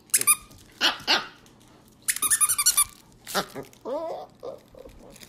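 Siberian husky puppy giving a series of sharp, high-pitched barks and yips while playing at a plush toy, with a short wavering whine about four seconds in.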